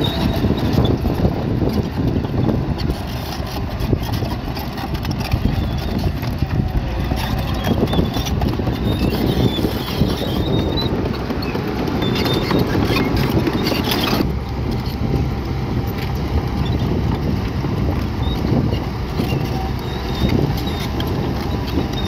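Heavy earthmoving machinery running at work, with a dense, steady engine noise and rock clattering and scraping.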